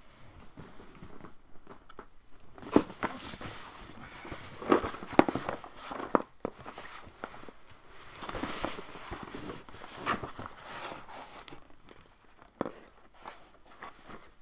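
Cardboard boxes being handled, picked up and stacked: rustling and scraping with irregular knocks of cardboard, a few of them sharper and louder.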